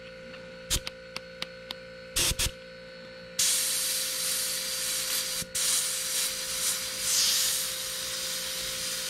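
Badger Anthem 155 airbrush: a few light clicks and two brief bursts, then about three and a half seconds in a steady spray hiss of air and paint as the trigger is held, with a short break around the middle.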